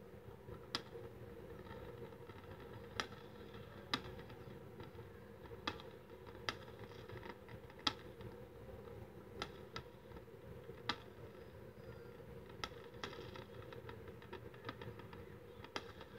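Fireworks bursting, heard as about a dozen sharp cracks at irregular intervals over a steady low hum.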